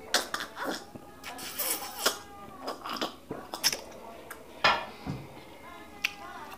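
Two people drinking water from glasses close to the microphone: gulps, swallows and wet mouth clicks in an uneven run, with a louder knock a little past halfway.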